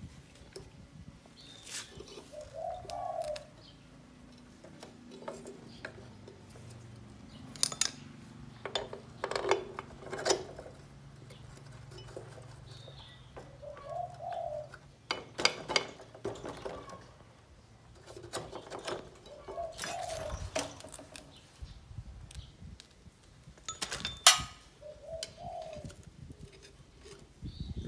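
A dove cooing in short phrases every few seconds, mixed with sharp metal clinks and knocks of hand tools on a motorcycle's front wheel hub and fork, the sharpest near the end.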